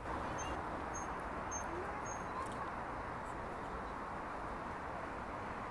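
Steady outdoor background hiss, with four short high peeps in the first two seconds.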